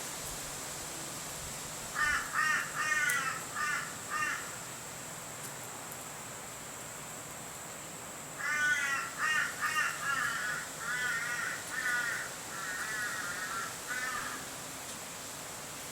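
A bird cawing in two runs of harsh repeated calls: about five short caws a couple of seconds in, then a longer run of about ten starting about eight seconds in, the last few drawn out.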